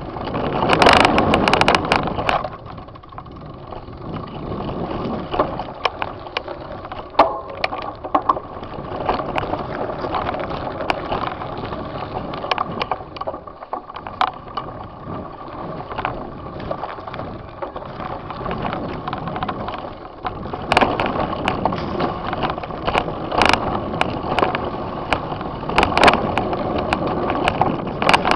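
Mountain bike riding down a dirt trail, heard from a camera on the handlebar: tyres rolling over the ground and the bike rattling, with many sharp knocks over bumps. It is loudest in the first two seconds and again over the last seven or so.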